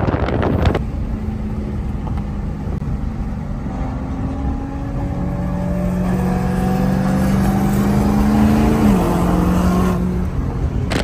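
A car engine running, its pitch climbing slowly and then dropping sharply about nine seconds in. There is rough wind and handling noise on the microphone in the first second.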